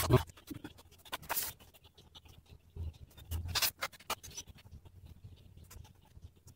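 Faint, scattered taps and clicks of fingers on a smartphone's touchscreen, with light handling noise as the phone is held and set up.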